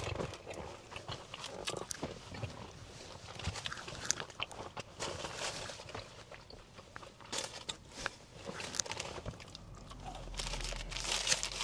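Close-miked mouth sounds of eating: biting and chewing food, with wet clicks and crackles throughout.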